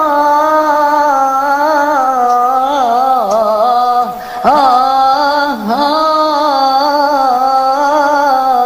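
Arabic tarab music: a single sustained, ornamented melodic line that wavers and bends in pitch, breaking off briefly about four seconds in.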